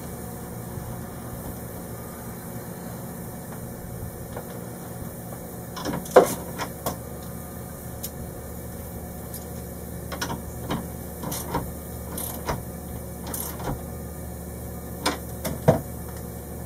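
Scattered clicks and knocks of hands handling a wiring harness and fittings inside a boat's engine compartment, over a steady low hum. The clicks begin about six seconds in, with the sharpest two near the start of that run and near the end.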